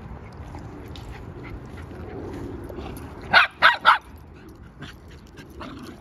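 A dog barks three times in quick succession about three seconds in. They are play barks as two dogs romp together.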